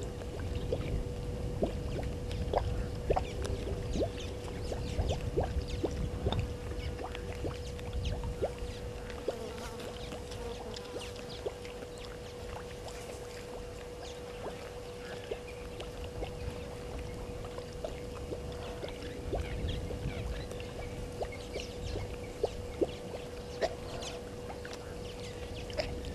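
Outdoor waterhole ambience picked up by a fixed field microphone: low wind rumble on the microphone with a steady faint hum, and scattered small clicks and ticks.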